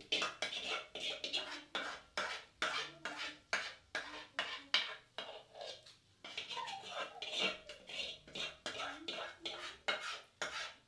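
A metal spoon scraping and knocking inside a batter container, over and over at about three to four strokes a second, as the last of the pancake batter is scraped out; a short lull about six seconds in.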